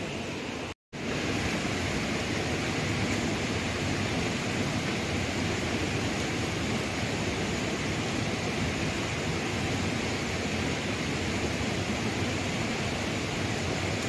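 Shallow rocky stream rushing steadily over stones, a continuous even water noise, broken only by a brief gap in the sound about a second in.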